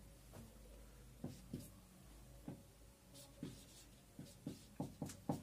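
Marker pen writing on a whiteboard: a string of short strokes and taps as letters are drawn, coming closer together near the end, over a faint steady hum.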